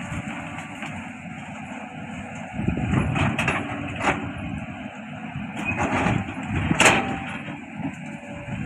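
Cat 320D L long-arm excavator's diesel engine running under work, with several sharp cracks or knocks, the loudest about seven seconds in.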